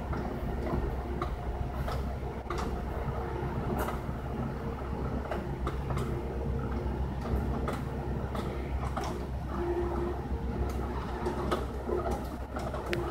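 Steady low mechanical hum with a few faint steady tones, broken by scattered short clicks and knocks.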